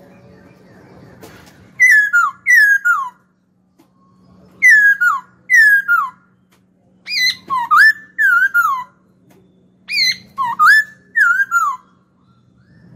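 Caged black-throated laughingthrush singing: four phrases of loud, clear whistled notes, most sliding downward, with short pauses between the phrases.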